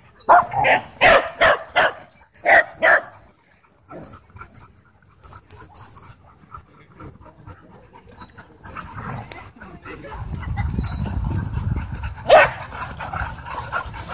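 Dogs barking during rough play: a quick run of about seven barks in the first three seconds, then quieter, with one more sharp bark near the end.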